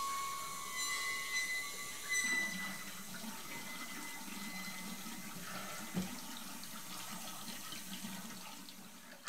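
Bathroom tap running into a sink, with a soft knock about six seconds in.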